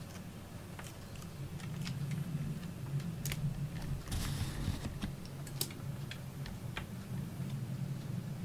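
Scattered light clicks and taps with a brief rustle about four seconds in, over a low steady hum: a cat stepping about on a wooden slatted rack and books.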